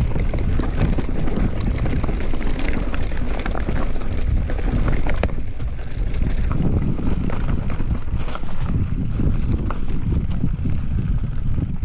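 Wind rumbling on the microphone over a Giant Reign 2 LTD mountain bike descending a forest trail at speed: tyres rolling over dirt and stones, with frequent sharp clicks and knocks as the bike rattles over roots and rocks.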